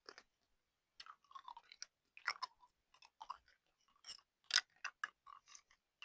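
Close-up chewing of a firm maple-flavoured gummy candy: irregular wet mouth clicks and smacks starting about a second in, the loudest about four and a half seconds in.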